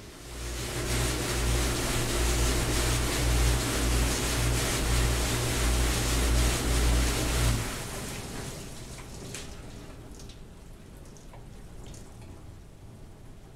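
Auto-Chlor D2 commercial dish machine running a wash cycle: water spraying with a steady low motor hum. The hum and spray stop about eight seconds in, leaving a fading hiss with a few faint clicks.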